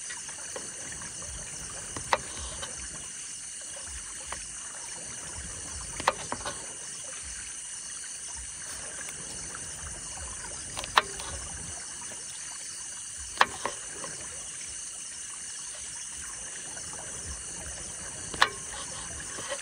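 Creek water flowing with a steady high chirring of insects. Five sharp taps stand out, spaced a few seconds apart.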